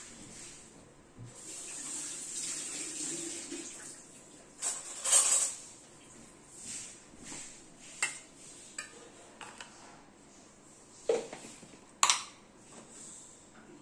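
Water running from a kitchen tap for a few seconds, briefly louder midway, then scattered clinks and knocks of steel kitchenware, one of them a steel spoon set into a steel bowl near the end.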